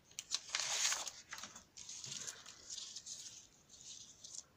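Paper and card rustling and sliding over a cutting mat as die-cut pieces and a thin metal cutting die are handled, with a few light taps.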